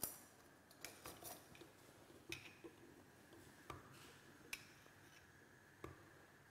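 Mostly near silence, broken by a handful of faint, scattered clicks and taps: a spoon knocking against a small bowl and the Moulinex food chopper's bowl as capers are spooned in.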